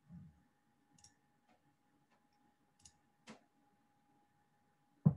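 Quiet room tone with a faint steady high hum, broken by a few short, sharp clicks a second or two apart and a louder click near the end.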